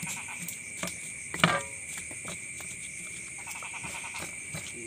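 Night chorus of insects with a steady high buzz, and frogs calling in quick rattling pulse trains, one near the start and a longer one in the second half. A sharp knock about a second and a half in.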